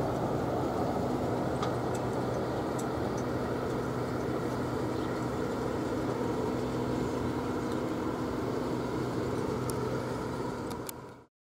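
A steady low engine-like hum with a constant drone and a few faint sharp clicks, fading out near the end.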